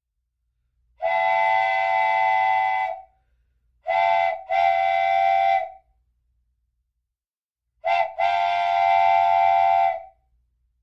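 Train whistle blowing three times: one long blast, then a short toot followed by a long blast, twice. Each blast holds a steady chord of tones.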